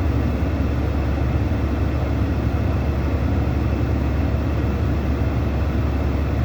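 Steady low vehicle rumble of engine and road noise, stepping up in level at the start and then holding even.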